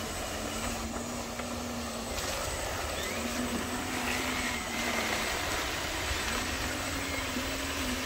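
Small electric motor of a radio-controlled model truck whirring in three spells of a second or two each, over a steady hiss.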